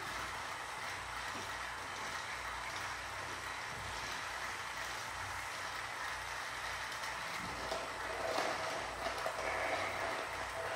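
Battery-powered toy trains running on plastic track: a steady mechanical noise from small motors and wheels, a little louder near the end.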